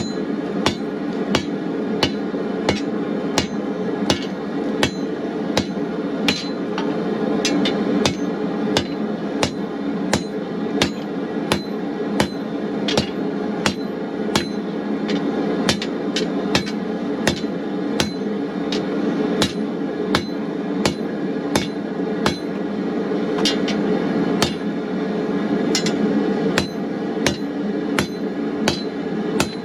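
Hand hammer striking hot steel on an anvil in a steady rhythm, about three blows every two seconds, drawing out a sharpened point on a stake. Under the blows runs a steady roar, which fits the running gas forge.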